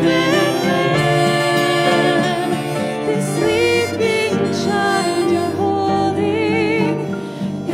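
Live church band music: women singing a slow song over piano, cello and acoustic guitars.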